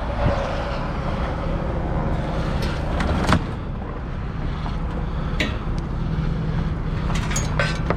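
A motor vehicle engine running steadily, with a few sharp clicks and knocks; the loudest comes about three seconds in.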